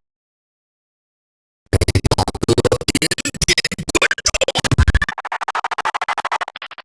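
Preset clips from a sound-effect soundboard app played back one after another. After about a second and a half of silence, a loud music-like clip with deep bass and fast stuttering, scratch-like texture comes in. About five seconds in it gives way to a thinner, higher clip, which cuts off near the end before another begins.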